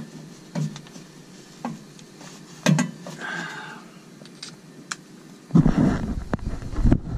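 A few sharp knocks and metal clinks, roughly one a second, with a short scrape about three seconds in, from handling the sheet-metal housing of a fan coil unit. About five and a half seconds in, a loud low rumbling of handling noise starts as the camera is moved about.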